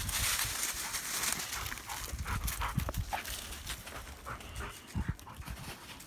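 Black Labrador retrievers running through dry fallen leaves: a dense rush of rustling and crunching paw steps that thins out after about two seconds into scattered steps and leaf rustles.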